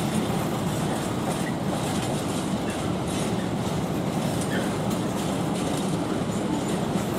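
Train of empty flat wagons rolling past on the far tracks: a steady rumble of steel wheels on the rails.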